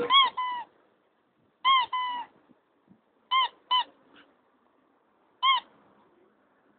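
A squeaky dog toy squeezed by hand: short, high squeaks, mostly in squeeze-and-release pairs, repeated every second and a half or so, with a single squeak near the end.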